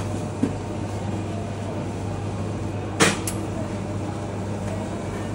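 Steady low background hum with a sharp knock about three seconds in, a lighter knock just after it, and a faint tick near the start.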